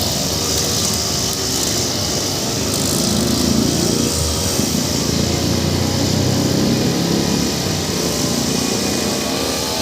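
Two-stroke petrol brush cutter running steadily while cutting grass, its engine note a little louder and lower in the middle as it works.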